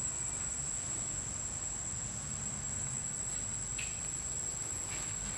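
Insects droning steadily in the trees: one high, unbroken tone, with a faint low rumble underneath.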